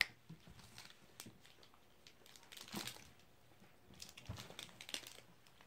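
Faint crinkling and rustling of plastic biscuit wrappers being handled, with a few soft clicks.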